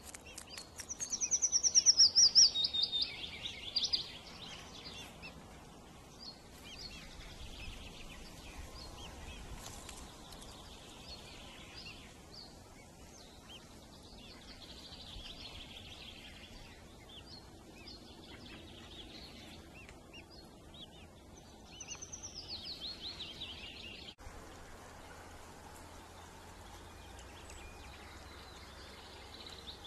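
Outdoor songbird song: a fast run of notes falling steadily in pitch, about three seconds long near the start and heard again more faintly about two-thirds of the way through, with scattered faint bird chirps between.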